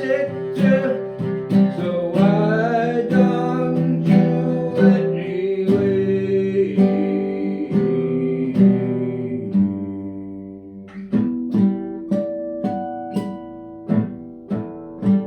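Acoustic guitar music: a song's instrumental passage of strummed and picked chords, growing softer about ten seconds in before sharper strums come back.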